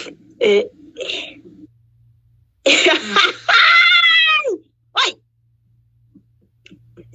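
A woman's loud vocal outburst about two and a half seconds in: a harsh, breathy burst running into a long drawn-out cry that drops in pitch at the end. Before it come a few short sounds from her, and a faint low hum runs underneath.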